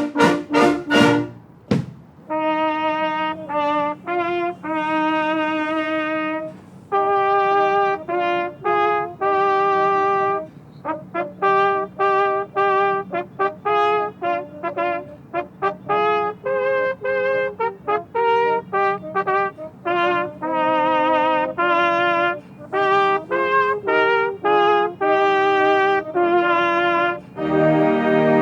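A solo brass instrument plays a melody in separate, slightly wavering notes over a faint sustained backing. Near the end the fuller brass ensemble comes in.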